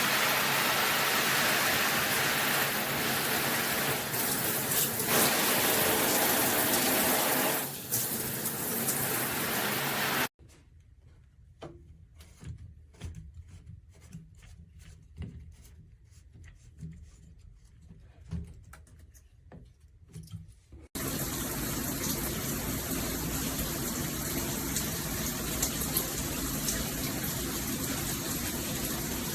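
Water spraying from a SparkPod pressure-boosting shower head with a steady hiss. About a third of the way in the spray cuts off abruptly to quiet dripping and small splashes. About two-thirds of the way in a steady spray starts again, with a thin high tone above it.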